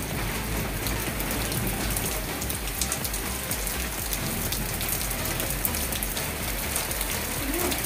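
Steady rain falling, with many separate drop hits and a steady low rumble underneath.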